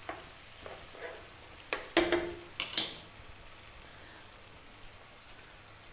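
Onions, celery and crushed tomatoes frying in oil in a pan, a steady soft crackling sizzle, with a few short scrapes and knocks of a wooden spoon stirring about two to three seconds in.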